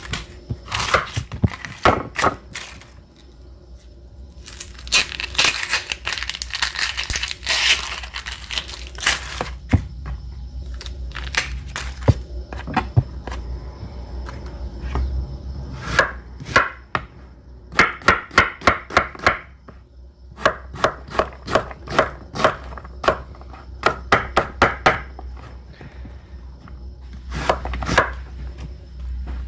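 Chef's knife dicing an onion on a wooden cutting board: quick runs of sharp knife strikes on the board, several a second, broken by quieter stretches.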